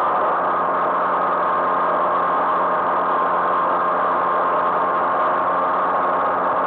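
Vintage moped's small two-stroke engine running at a steady cruising speed, heard from the rider's seat; its pitch stays even, with no revving or gear changes.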